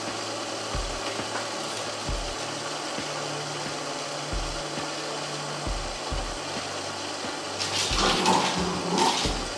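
Homemade alcohol stoves burning under cooking pots: a steady hiss with a low hum and a few dull bumps. The sound grows louder and rougher for about a second and a half near the end.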